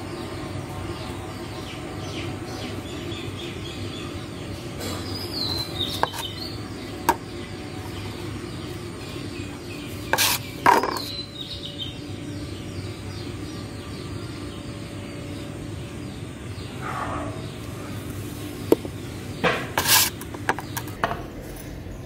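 A metal putty knife scraping and stirring white cement and Fevicol paste in a steel bowl, with sharp knocks against the bowl about ten seconds in and again near the end. Birds chirp repeatedly in the background.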